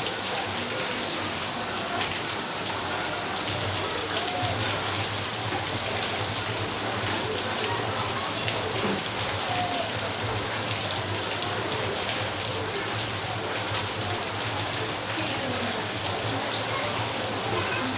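Steady rain falling hard on surfaces, a continuous hiss dotted with many sharp individual drop hits.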